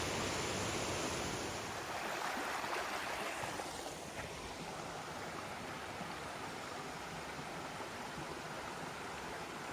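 Rushing water of a small mountain stream, a steady hiss that is louder for the first few seconds, then softer and even.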